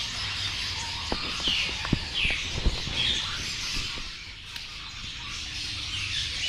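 Many caged small birds chirping, short falling chirps repeating about once a second. A few sharp knocks come in the first half.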